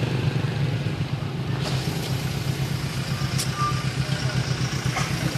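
An engine running steadily with an even, low throb.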